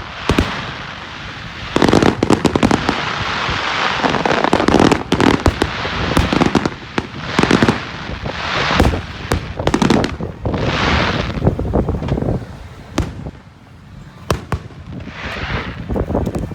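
Fireworks going off in quick succession: many sharp bangs and crackling, with hissing bursts that swell and fade, thinning out briefly about two-thirds of the way in.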